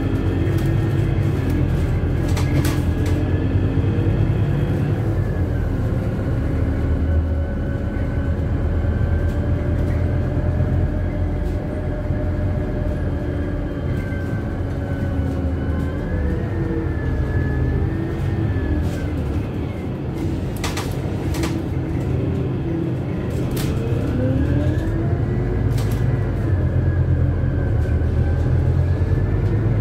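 Inside a Scania CityWide LF CNG city bus under way: a steady low engine and road rumble. A drivetrain whine over it sinks in pitch around the middle and climbs again near the end, as the bus slows and picks up speed. A few sharp rattles are heard from the body.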